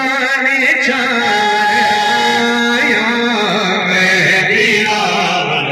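A man's voice chanting a noha, the Shia lament for Imam Hussain, sung into a microphone in long held notes with wavering ornamented turns.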